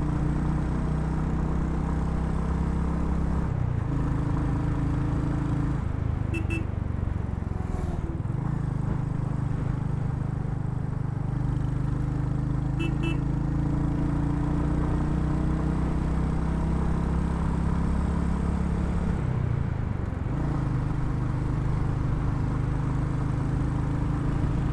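Royal Enfield Hunter 350's single-cylinder engine running under way, with wind rushing past, its note stepping down and back up several times as the rider changes gear. Two short double beeps sound about six seconds apart.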